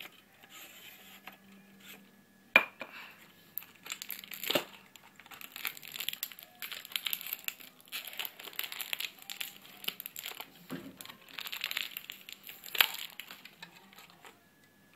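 Plastic packaging crinkling and rustling as it is opened by hand, broken by a few sharp clicks, the loudest about two and a half seconds in and another near thirteen seconds.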